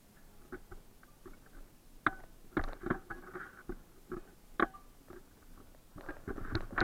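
Handling noise from the plastic body of a toy RC car with a camera mounted on it: irregular clicks, knocks and brief rubbing as fingers grip and shift it. The sharpest knocks come about two seconds in, near the middle and just before the end.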